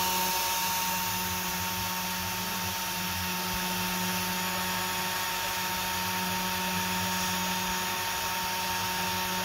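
A small CNC machine's spring-loaded DC-motor spindle runs steadily with a constant high whine, its cutter milling soldermask off a printed circuit board.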